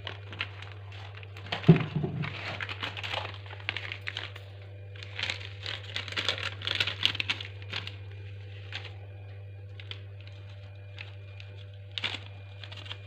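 Plastic packet crinkling and rustling in irregular bursts, with a knock about two seconds in, over a steady low hum.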